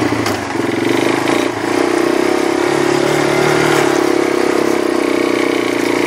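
Small vehicle engine running steadily while under way, a continuous even drone.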